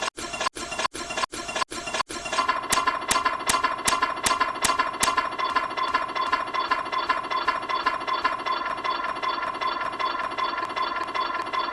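Glitch-edited cartoon audio: a short snippet stuttered about three times a second, then after about two seconds a dense, buzzing loop with a steady tone, repeating rhythmically.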